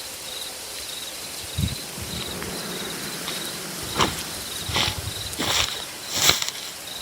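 Crickets chirping steadily in short repeated pulses. A few sharp rustles break in, bunched in the second half and loudest about six seconds in.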